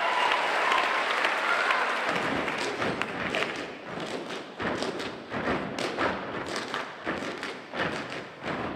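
Gumboot dancers slapping and stomping their rubber wellington boots in rhythm, sharp slaps and thuds coming about two or three a second from about two seconds in. Applause dies away over the first two seconds.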